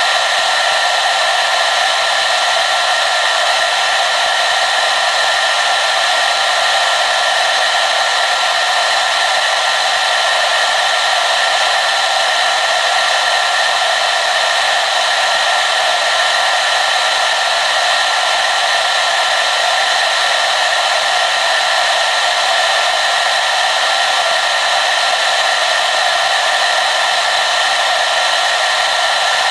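Hair dryer running steadily: an unbroken rush of blown air with a faint steady whine from its motor and fan, with no change in level.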